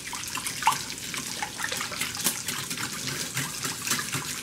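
Whisk beating cream and egg yolks in a ceramic bowl: quick, wet sloshing with many fast light ticks as the whisk strikes the bowl.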